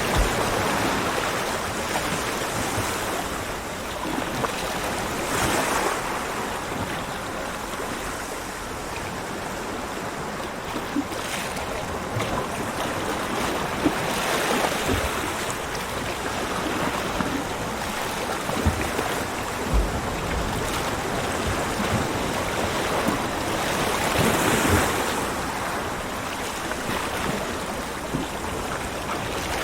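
Ocean surf breaking on a beach: a continuous rush of water that swells as each wave breaks, about four times, with the wash between.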